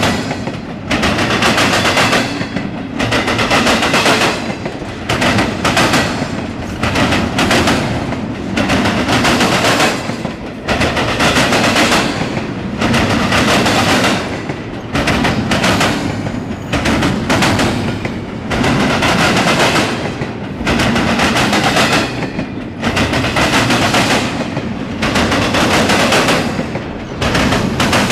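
Intermodal freight cars rolling past at close range, their steel wheels hitting the rail joints in a rapid, repeating clatter of sharp clacks, in clusters every second or two with brief lulls between.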